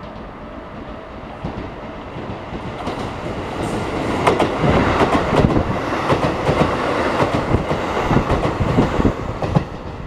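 A Keikyu electric train approaching and passing at close range, growing louder from about a second and a half in and loudest from about four seconds on. Its wheels clack rapidly over the rail joints as the cars go by.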